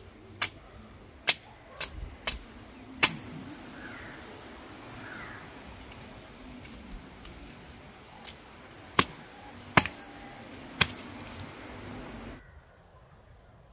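Sharp knocks at irregular intervals: five in quick succession, then four more a second or so apart later on, over a steady background hiss.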